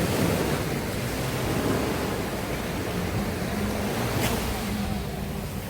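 Surf breaking and washing up a sandy beach: a steady rush of waves that swells near the start and slowly eases off.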